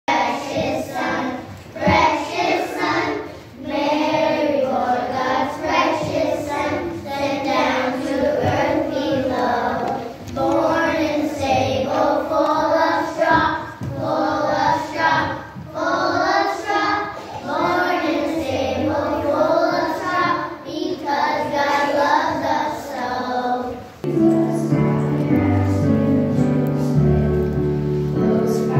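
A children's choir singing a song together in phrases of a second or two. About 24 seconds in it gives way to an electric keyboard playing slow, held chords.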